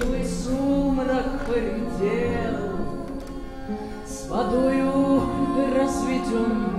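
Singing over musical accompaniment: a slow, drawn-out melody with no clear words, and a new, louder phrase starting about four seconds in.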